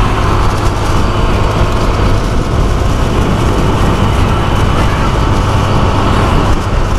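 Motorcycle under way, picking up to about 50 km/h: a steady rush of wind over the handlebar-mounted camera's microphone, with the engine's low drone underneath.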